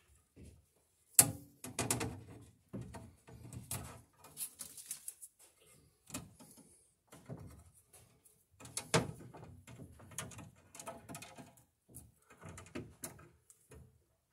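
Scattered sharp clicks and short scrapes of electrical cable and a hand tool handled against a metal breaker panel as the cable is fed in through its clamp. The loudest is a sharp click about a second in.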